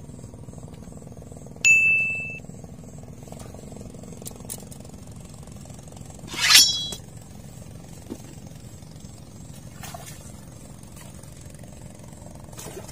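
A fishing rod's bite bell rings twice, signalling a fish taking the bait: a clear single ding about two seconds in that fades out, then a sharper, louder metallic jangle about six and a half seconds in. A steady low motor hum runs underneath.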